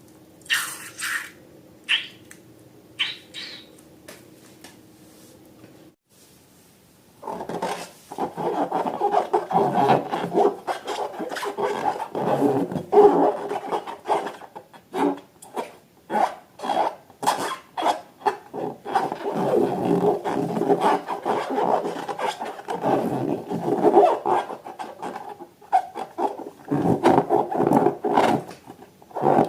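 Rubber balloons and slime being rubbed and squeezed by hand. First come a few short squelchy clicks, then a pause, then from about a quarter of the way in a dense, irregular run of rubbing and scraping.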